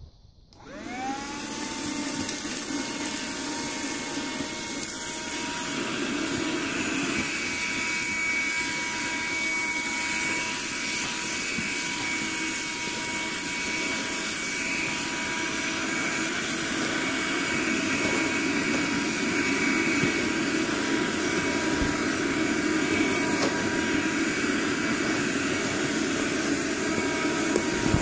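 SOWTECH cordless rechargeable hand vacuum switching on: its motor whine rises quickly to pitch within the first second, then runs steadily while the nozzle vacuums out the inside of a tool bag.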